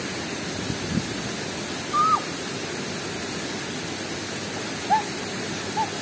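Steady rushing of a large waterfall pouring into a pool. A few brief high-pitched calls cut through, one about two seconds in and two more near the end.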